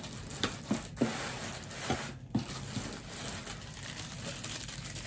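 Plastic wrapping crinkling and rustling as a wrapped makeup bag is lifted out of a cardboard box, with a few sharp handling clicks in the first two and a half seconds.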